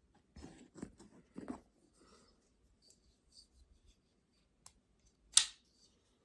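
Knife and rolling sharpener being handled: a few short scrapes and clicks in the first second and a half, then a faint tick and a sharp click about five seconds in.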